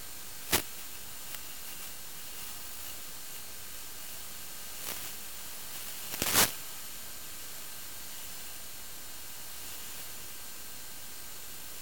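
Steady static hiss from an analog FPV video downlink. It breaks into a short crackle about half a second in and a louder cluster of crackles around six seconds in.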